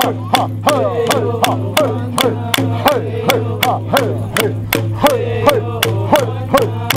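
Pomo dance song: voices singing over a steady beat of sharp clicks, about three a second.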